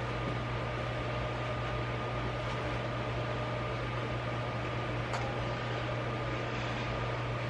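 A steady low machine hum under an even hiss, with one faint click about five seconds in.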